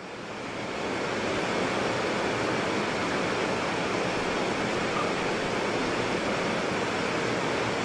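White water rapids rushing steadily, fading in over about the first second.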